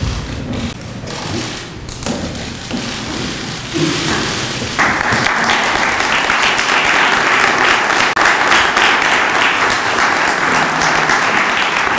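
Large audience applauding: a few seconds of low shuffling and murmur, then clapping breaks out about five seconds in and carries on steadily.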